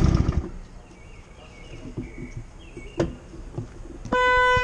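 Motorcycle engine running, which stops about half a second in and leaves faint outdoor ambience with a few small chirps and a click. Near the end a steady beep with a clear pitch sounds for just under a second.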